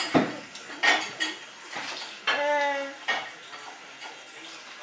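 A few sharp clicks and light knocks, with a young child's short vocal sound about two and a half seconds in.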